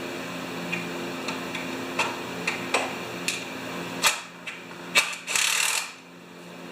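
Hand tools working on a small engine's metal housing to loosen a stubborn Phillips screw: scattered light clicks, then a few louder knocks and a brief hiss about five seconds in. A steady low hum runs underneath until the knocks.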